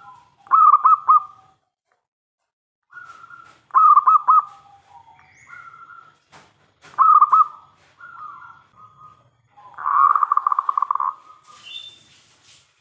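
Zebra dove (perkutut) singing: three loud phrases of quick cooing notes about three seconds apart, with softer held coos between them, then a longer fast rattling coo about ten seconds in.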